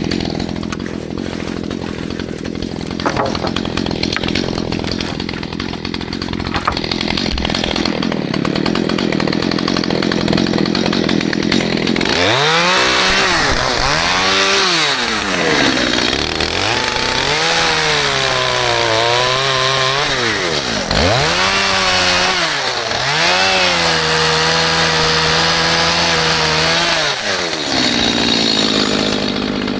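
Stihl MS211 two-stroke chainsaw idling, then revved hard from about twelve seconds in, its engine pitch rising and falling in four or five surges as it cuts with a dull chain, before dropping back to idle near the end.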